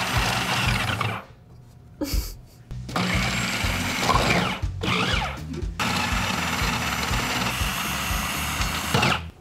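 Food processor motor running with its shredding disc grating blocks of cheese pushed down the feed tube, switched off and on again in several bursts with short pauses.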